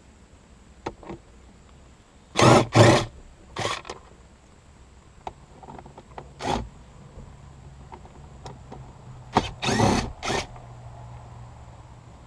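Short bursts of tool and handling noise during work on the car's interior: a pair about two and a half seconds in, single ones near four and six and a half seconds, and a cluster of three near the end, each well under a second. A faint steady low hum runs underneath.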